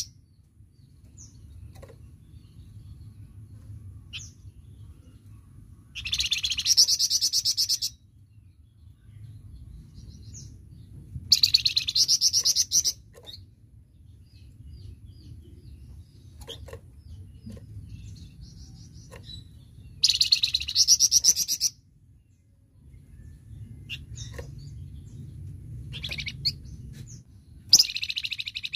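A flamboyan songbird singing gacor: loud, rapid-fire 'tembakan' phrases about one and a half seconds long, four times, with faint short chips between them. A low steady hum runs underneath.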